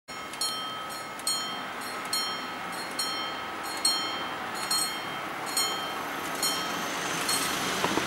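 Italian level crossing warning bell ringing, a single metallic strike a little under once a second, each one ringing on briefly. It signals that the barriers are about to come down for an approaching train.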